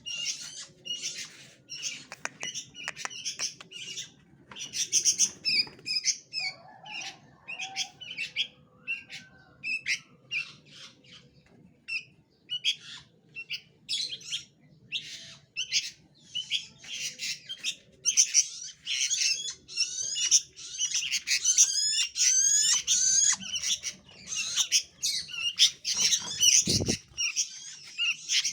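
Songbirds in an aviary calling and chirping, a dense run of short, high-pitched calls and squawks that grows busier in the second half. A brief low bump near the end.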